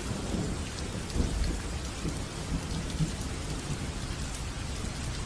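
Steady rain falling: an even hiss of rain with many small drop taps and a low rumble underneath.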